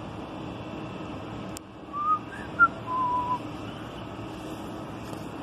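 A person whistling a short phrase of four clear notes, the last one longest and lowest, over a steady background hum, with a single click just before.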